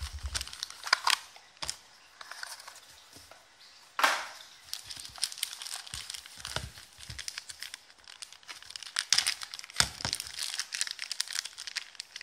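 Black plastic wrapping around a pack of trading cards crinkling and rustling as it is handled, with one sharp snap about four seconds in and denser crackling from about five seconds on.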